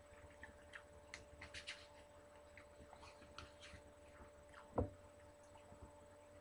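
Faint, scattered mouth clicks of someone chewing a sandwich close to the microphone, over a steady faint hum, with one louder knock about three-quarters of the way in.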